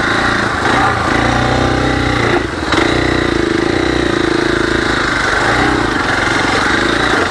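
Hero Xpulse 200 4V's 200cc single-cylinder engine running steadily, easing off briefly about two and a half seconds in and then picking back up.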